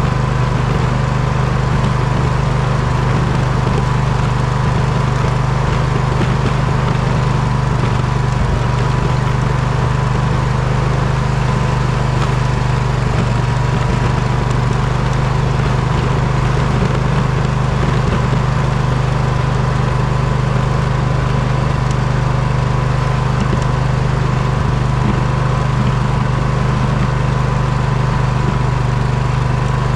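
Poulan riding mower engine running steadily at constant speed, with a thin, even whine above the drone.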